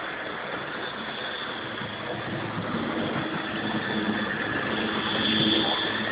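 Model train running on its track: a steady whirring hum of the electric motor and rumble of wheels on the rails, growing a little louder in the second half.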